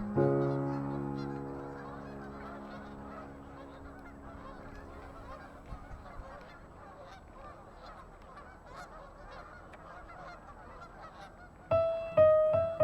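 A dense, chattering din of a flock of geese calling, under a held musical chord that fades out over the first few seconds. Piano music comes in near the end.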